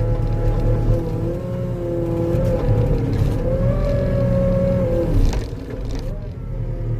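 Skid steer engine running under load with a steady whine whose pitch dips and rises as the grapple works. A sharp clunk comes about five seconds in, and the machine eases off briefly after it.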